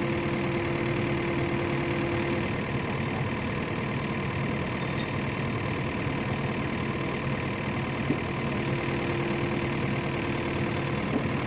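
Mini excavator's diesel engine running steadily at idle. A faint steady whine sits over it for the first couple of seconds and comes back near the end, and there are two light knocks.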